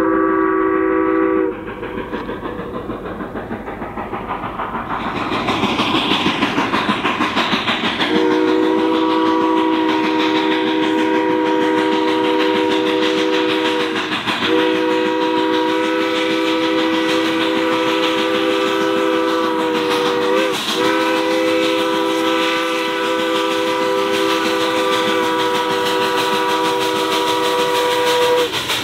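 The steam whistle of Durango & Silverton's K-28 2-8-2 locomotive 473 sounds a chord of several notes. It ends a blast about a second and a half in, then blows again for a long held blast of about twenty seconds, broken briefly twice. Between the blasts and under them, the locomotive's exhaust beat and the rolling train keep up a steady rhythmic noise.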